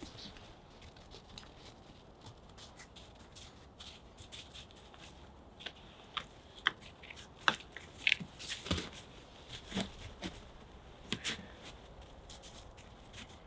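Nylon hammock strap and fabric being handled: scattered rustles and small clicks, sparse at first and busier from about halfway through.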